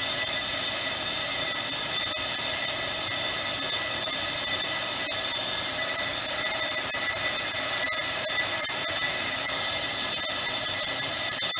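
Ammco 4100 brake lathe turning a brake rotor, its cutting bits taking a slow finish cut under the power feed: a steady, high-pitched whine and hiss with a few faint ticks.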